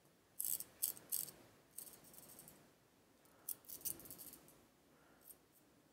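Small metallic clicks and brief rattles from a pocket watch movement being handled. They come in short bursts: three in the first second or so, softer ones around two seconds in, and another cluster near four seconds.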